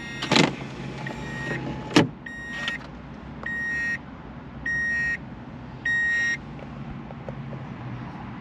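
Two sharp knocks, then a 1994 Subaru Legacy's in-car warning chime beeping five times, about once every 1.2 seconds, each beep half a second long.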